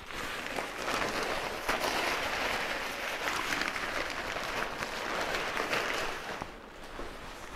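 A fabric car cover rustling as it is dragged off a car, a steady crackly rustle that eases off near the end.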